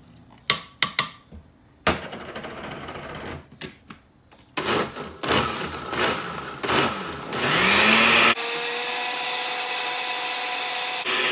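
A few knocks and clatters as the lid is handled, then an Oster countertop blender motor starts about four seconds in, blending tomato salsa. Its whine rises as it speeds up, and about eight seconds in it settles into a steady, loud high-speed run.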